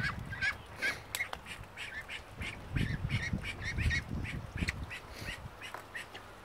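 A flock of young domestic ducks calling: many short quacks overlapping, several a second, with a low rumbling noise about halfway through.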